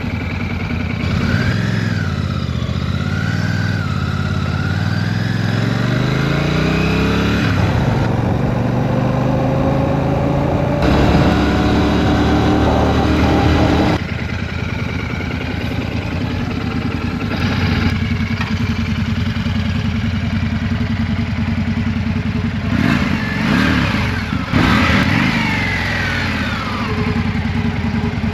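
Royal Enfield Shotgun 650's parallel-twin engine pulling under the rider, revs climbing through a gear, dropping briefly at a shift, and climbing again before easing off about halfway through, over steady wind rush.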